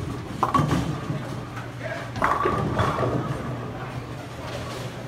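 Bowling alley sounds: a ball rolling down the lane and pins clattering, over a steady low machine hum and background chatter.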